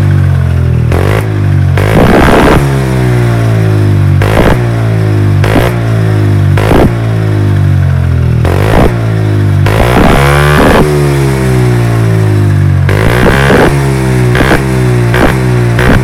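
SYM Joymax 250 scooter's single-cylinder four-stroke engine running through an MRP aftermarket exhaust, its throttle blipped over and over so that the revs drop back after each blip. Sharp pops from the exhaust come about every second, the backfire that goes with flames from the tailpipe.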